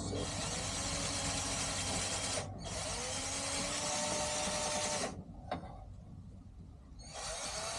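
Power drill running in two long runs of about two and a half seconds each with a brief stop between, then starting again near the end; a hissing whirr with a faint motor whine that shifts in pitch.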